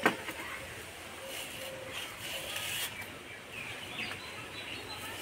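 A sharp snap as a taro stalk is cut against a bonti blade, followed by soft, intermittent rasping of the fibrous stalk skin being stripped off by hand.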